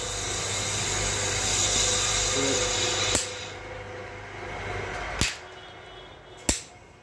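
A steady electric machine hum cuts off with a click about three seconds in. Then come two sharp knocks as the stainless-steel jar of a commercial mixer grinder is handled and set on its base.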